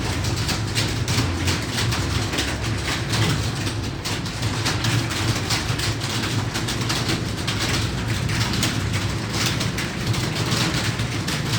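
Many computer keyboards being typed on at once, a dense, irregular clatter of keystrokes over a steady low hum.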